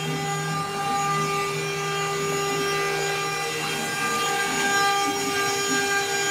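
CNC router running, its spindle and stepper motors giving a steady whine of several held tones over the noise of the bit cutting wood.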